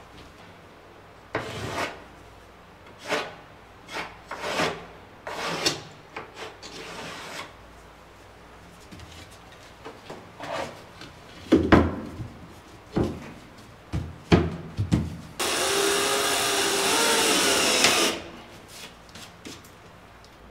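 Drywall panels being handled against a wooden frame: scraping and knocking, with several sharp knocks past the middle. Near the end a cordless drill runs steadily for about two and a half seconds.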